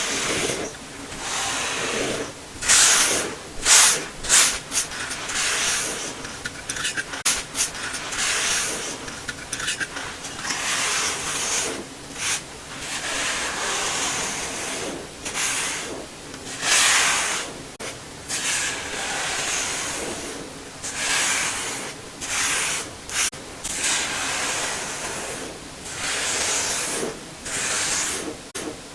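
Brush sweeping through baking soda powder: a series of scratchy swishing strokes of varying length, about one a second, with a few sharper, louder strokes about three to four seconds in.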